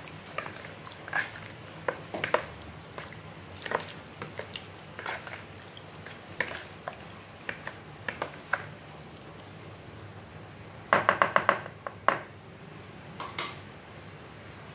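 A spoon stirring and mashing pork belly and boiled egg yolks into the dressing in a plastic bowl: wet mixing with scattered scrapes and clicks against the bowl, then a quick run of about six sharp taps near the end. The yolks are being mashed to thicken the dressing.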